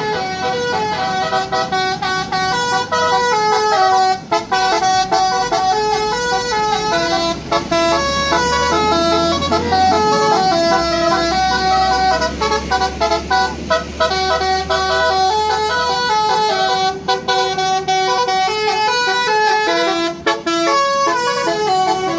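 Tour bus's basuri-style musical air horn playing a long song melody as a string of stepped, held notes, with a low engine drone underneath.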